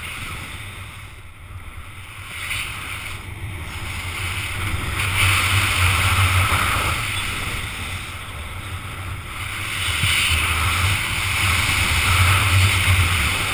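Wind rushing over the microphone of a speed-wing pilot's camera in fast flight, a rough rumble that swells and eases, loudest about five to seven seconds in and again near the end.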